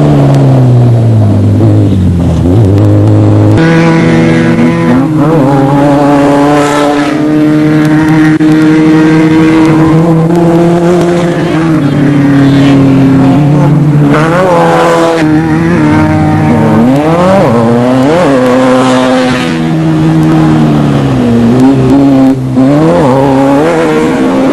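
Off-road desert race vehicle engines running hard. The pitch holds for a few seconds at a time, then steps down and climbs again, with several quick rises and falls in the second half.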